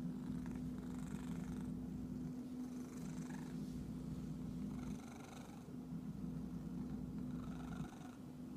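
Domestic cat purring steadily, close to the microphone, while being scratched, with a soft rustle of fur about every two seconds.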